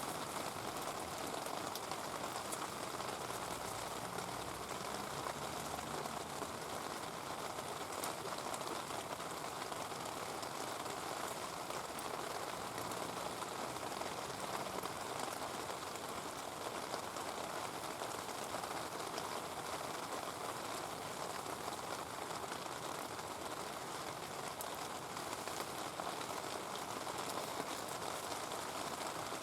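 Heavy rain falling steadily, with a few faint sharp ticks.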